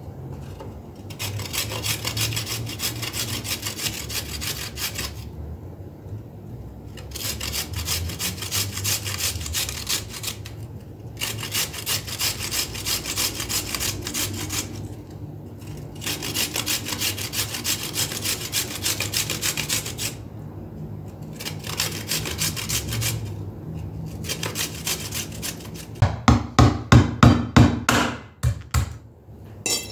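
Bouts of fast, rasping back-and-forth strokes, each a few seconds long with short pauses between them, then a quick run of louder, sharp knocks over the last few seconds.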